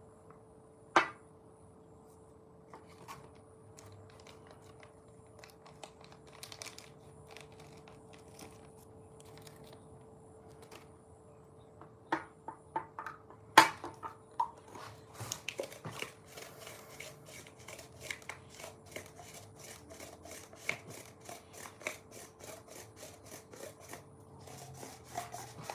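Hands handling rolling papers and their cardboard paper box: rustling, crinkling and tearing of paper, with a few sharp clicks, the loudest about a second in and just past halfway. A dense run of quick crinkling fills the second half, over a faint steady hum.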